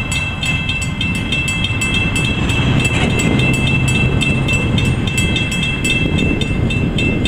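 Railroad crossing warning bells clanging in a steady rapid rhythm as the crossing gates lower, over a low rumble; the bells fall silent at the end, once the gates are down.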